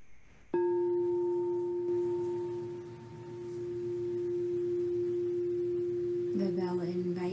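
Crystal singing bowl struck once, ringing with one steady tone and a fainter higher overtone that hold on without fading away, marking the close of a silent meditation. Near the end a woman's voice comes in over the ringing.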